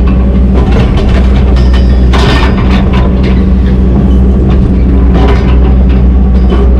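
Excavator diesel engine running steadily at working speed, with bursts of clatter about two and five seconds in.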